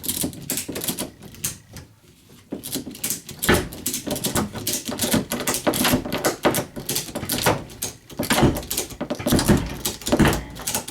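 A rapid run of irregular clicks and rattles as copper refrigerator tubing is worked out of the fridge cabinet, with a short lull about two seconds in.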